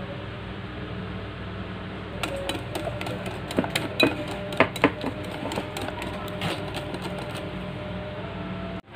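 Wire whisk beating pancake batter in a glass bowl: quick, irregular clicks and taps of the wires against the glass, starting about two seconds in and stopping about a second before the end, over a steady low hum.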